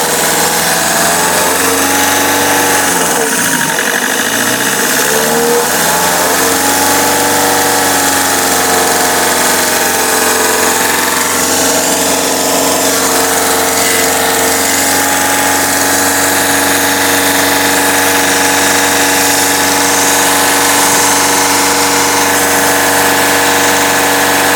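Peugeot 307's 2.0 HDi 136 four-cylinder turbodiesel running steadily at idle, with a set of steady tones over the engine note. The owner takes the noise for abnormal and does not know its cause.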